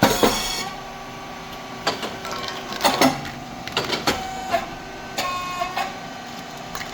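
Rice cake popping machine with titanium-coated moulds in its production cycle: a series of sharp pops and hissing air bursts, the loudest right at the start, over a steady hum.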